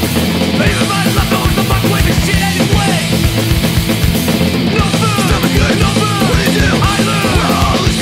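Loud punk rock recording: a full band with electric guitars and drums keeping a steady beat.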